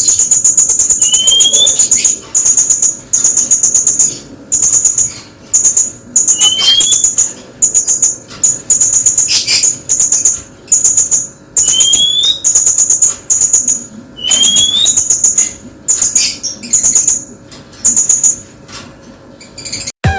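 Blue-crowned hanging parrot (srindit) calling: high, thin, rapid rattling trills about a second long, repeated with short gaps, and a short rising whistle every few seconds.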